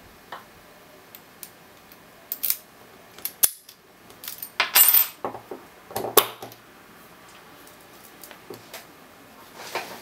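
Brass Master Lock No. 150 padlock being worked with its key, the steel shackle opened and pressed shut. It gives a scattered run of sharp metallic clicks and clatters, loudest about halfway through.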